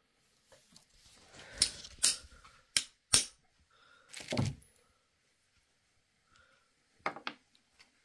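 Small metal tools and snap-fastener parts being handled on a hard surface: a run of sharp metallic clicks and knocks, a duller knock about halfway, then two more clicks near the end.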